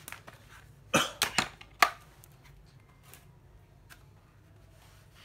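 A man coughing four times in quick succession, about a second in.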